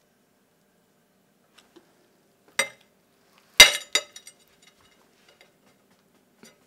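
Kitchenware clinking and knocking: a sharp knock about two and a half seconds in, a louder one a second later with another right after it, then a few light ticks.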